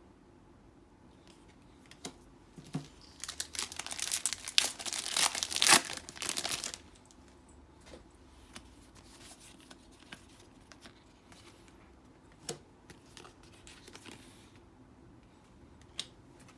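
Crinkling and tearing of a trading-card booster pack's foil wrapper being handled, a dense crackle of a few seconds. Scattered light clicks of cards being handled come before and after it.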